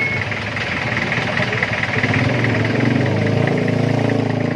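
Jeepney's diesel engine running, heard from riders hanging on the rear step, its pitch shifting a little about halfway through.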